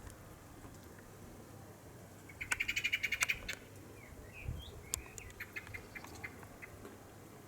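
A bird calling: a fast chattering run of about a dozen harsh notes lasting about a second, followed by a few short chirps. Scattered single ticks sound around it.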